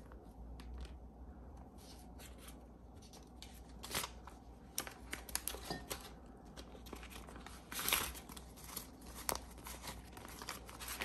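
Paper banknotes and a clear plastic zipper pouch rustling and crinkling as cash is pulled out and fanned out by hand, in many small scattered clicks and rustles, with a denser rustle about eight seconds in.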